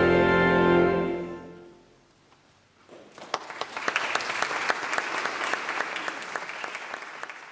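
Final chord of choir and pipe organ held, then dying away into the church's reverberation over about a second. After a moment's silence the audience applauds, the applause fading away near the end.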